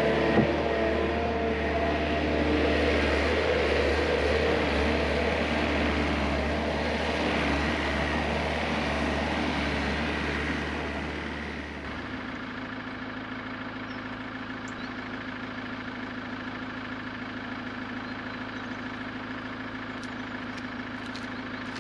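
A machine's engine running steadily, then dropping to a quieter, lower idle about halfway through.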